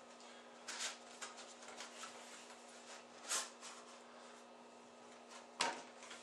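A plastic hard case being handled and opened: a few sharp clicks and knocks with lighter ticks between them, spaced a couple of seconds apart.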